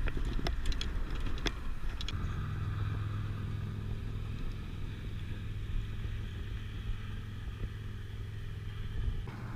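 Hard-wheeled fishing cart rattling and clicking over the concrete bridge deck for about two seconds, then a steady low engine hum.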